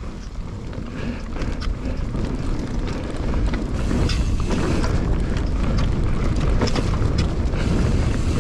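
Mountain bike riding fast down a dirt jumps trail: wind on the rider's camera microphone and tyres rolling over dirt, with scattered clicks and rattles from the bike. The noise grows louder over the first few seconds as speed builds, then holds steady.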